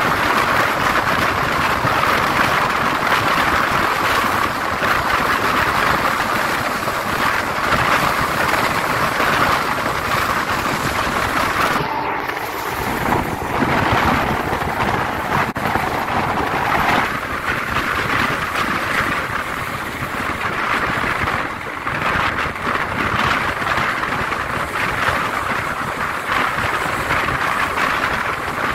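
Steady running noise of a moving express passenger train: wheels on the rails and rushing air, with a short lull about twelve seconds in.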